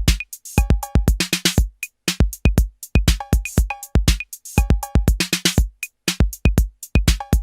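Electronic background music with a drum-machine beat: kick drums, hi-hats and short synth stabs in a pattern that repeats about every two seconds.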